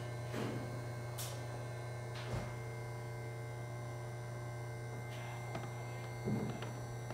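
Air infiltration test unit's internal pump running with a steady hum, pulling air against the window chamber to hold the test pressure at about 0.3 inches of water. A few soft knocks, the loudest about six seconds in.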